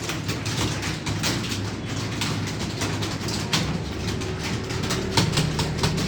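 Many computer keyboards being typed on at once: a dense, irregular clatter of key clicks over a steady low hum.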